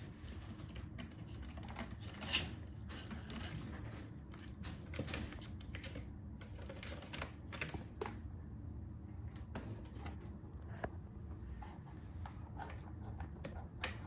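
Kittens playing on a cat tree: irregular light taps, scuffs and claw scratches of paws on the wooden base and sisal posts, with one louder knock about two seconds in.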